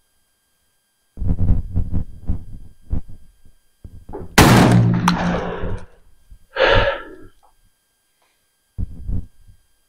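A single shot from a Beretta A300 12-gauge semi-auto shotgun firing a rifled slug, sudden and sharp about four and a half seconds in, with a ringing tail. A shorter burst of noise follows a couple of seconds later.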